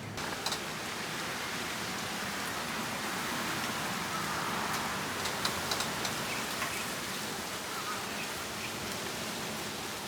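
Gusty wind blowing, a steady rushing hiss with a few faint ticks, swelling slightly around the middle.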